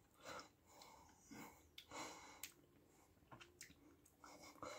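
Near silence with faint sounds of a man eating soup from a spoon: soft breaths and mouth noises, with a few small clicks.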